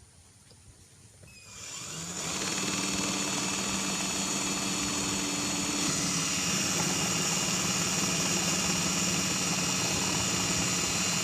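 Electric hand drill starting about a second and a half in and running steadily, drilling a hole through the bottom of an upturned melamine pot.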